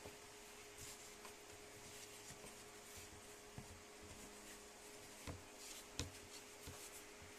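Faint rubbing and pressing of small hands kneading dough on a floured wooden board, with a couple of light knocks about five and six seconds in, over a faint steady hum.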